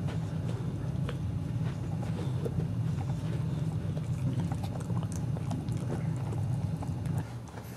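Boxer dog gnawing a chew stick close by: scattered small wet clicks and crunches over a steady low hum, which stops shortly before the end.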